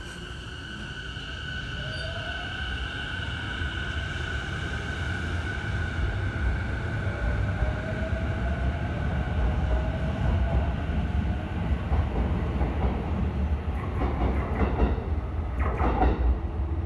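JR East E233-series Saikyo Line electric train pulling away: its traction motors whine in tones that rise slowly in pitch as it gathers speed, over a low rumble that grows louder. A few knocks come near the end.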